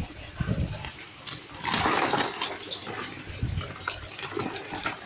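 Fish thrashing and splashing in a net and a metal basin of water, with irregular thumps and one louder splash about two seconds in.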